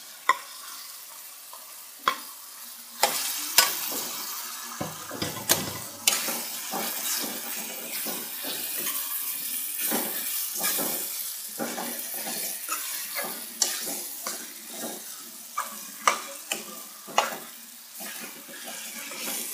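Beef liver pieces going into a hot kadai of fried tomato-onion masala and sizzling, while a steel spatula stirs them with repeated sharp clicks and scrapes against the metal pan.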